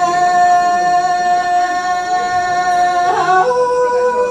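A singer performing Hmong lug txaj, holding one long, very steady note, then stepping up to a higher held note a little after three seconds in.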